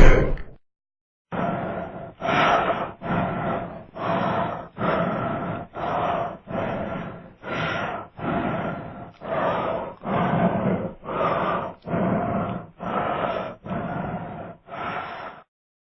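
A short, rough growling sound effect repeated about fourteen times in a row, each under a second long with brief gaps between. A louder noisy sound cuts off just at the start.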